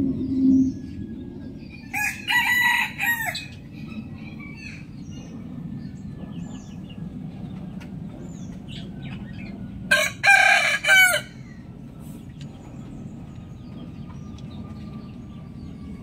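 Rooster crowing twice, about eight seconds apart, each crow lasting just over a second, with faint high chirps in the background.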